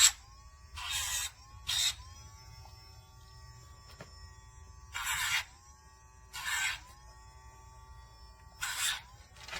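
Cordless electric dog nail grinder running with a steady whine, its spinning sanding drum pressed against a dog's nail in five short touches, each a harsh grinding rasp of under a second. The motor's pitch sags under the load of each touch and climbs back once it lifts off.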